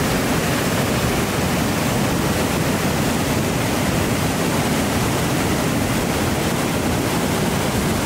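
Whitewater river rushing over boulders: a steady, even rush of water.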